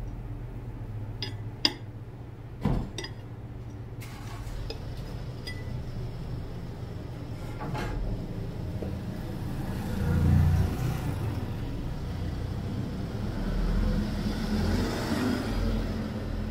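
A long clear knife cutting through a soft steamed sponge cake on a ceramic plate, with a few sharp clicks of the blade or plate in the first few seconds and one more about eight seconds in. Later come soft rustling handling sounds as a cut half of the cake is lifted, over a steady low hum.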